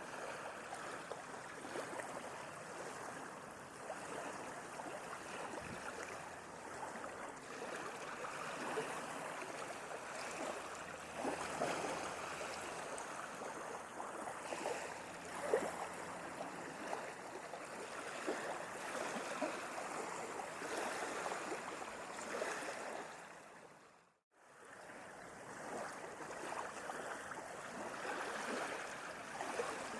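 Gentle sea waves washing and lapping in a steady stream of water noise. About three-quarters of the way through it fades out to silence and fades back in a second or so later.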